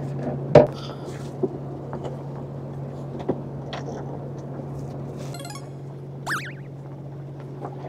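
Fishing boat's engine running with a steady low hum, a sharp knock about half a second in and a few lighter clicks, and a brief high chirp about six seconds in.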